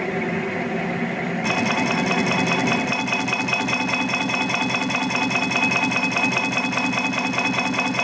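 Metal lathe running with a plate gear blank in the chuck. About a second and a half in, the tool bites into the blank's outer edge and a harsher metal-cutting sound with a fast, even rattle joins the steady run of the machine.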